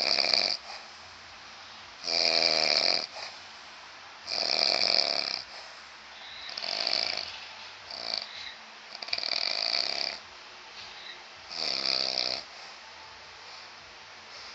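A man snoring heavily: about six rasping snores, one every two seconds or so, with the last ending about twelve seconds in.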